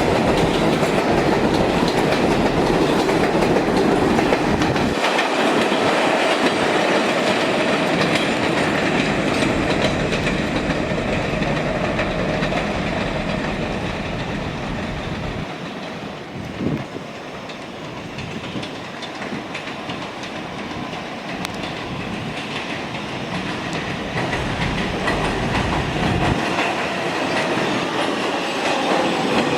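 Kawasaki R188 subway train running on the 7 line: wheel clatter over the rails and a steady rumble. There is a falling motor whine about halfway through and again near the end. The noise eases off past the middle, with one sharp click, then builds up again.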